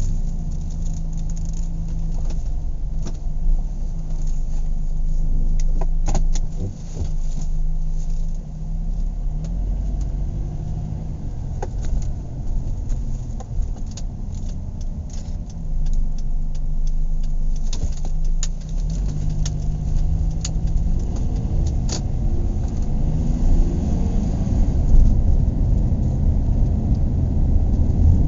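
Inside a moving car: low engine and road rumble with a steady engine note that changes pitch a few times and climbs over the last few seconds as the car gathers speed. Scattered small clicks and rattles come from the cabin.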